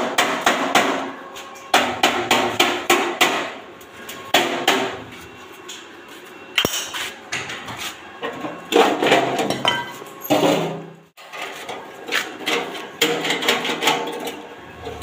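Hammer striking the sheet-steel top of a cash-counter box, in several runs of quick blows with short pauses between, each blow ringing on the metal.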